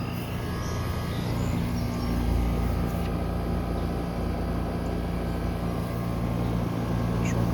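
Outdoor air-conditioning condensing unit running, a steady low electrical hum from its compressor with fan noise over it.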